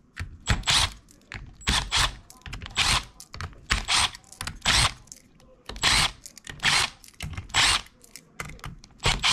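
Cordless power drill backing out small screws one after another in short trigger bursts, about one or two a second.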